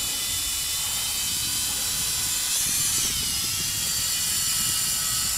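Hubsan H502 quadcopter's small electric motors and propellers buzzing with a steady high whine as it lifts off and hovers, over a low rumble that drops away near the end.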